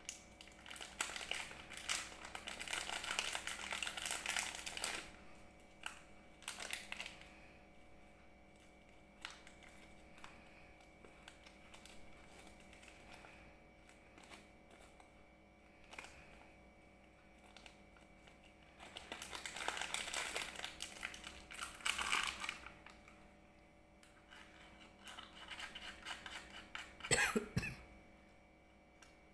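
Thin plastic wrapper crinkling as it is handled and torn open, in two long bursts of a few seconds each with quiet handling between. A brief, sharper, louder crackle comes near the end.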